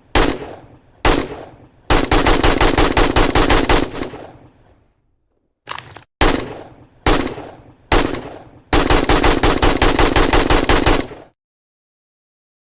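AK-47 rifle gunfire: two single shots, then a sustained burst of automatic fire lasting about two seconds, a few more single shots, and a second automatic burst of about two and a half seconds, each shot trailing off in an echo.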